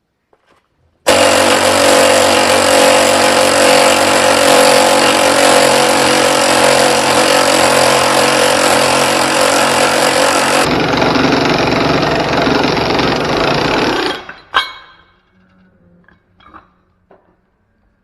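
A power tool runs loudly and steadily for about thirteen seconds. About ten seconds in it turns duller, then it stops, and a single sharp metallic clank follows.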